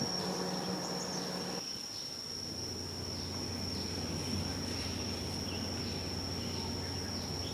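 Insects droning steadily in one continuous high-pitched trill, with a faint low hum underneath from about two seconds in.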